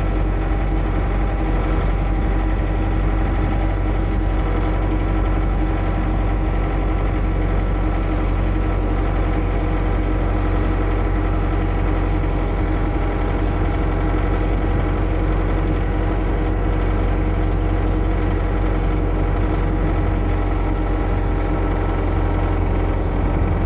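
A motor running steadily with a constant hum, holding one speed with no change.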